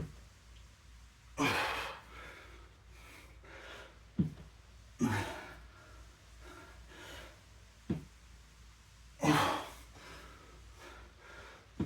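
A man breathing hard while exercising, with three loud gasping breaths about four seconds apart. Between them come short, dull knocks.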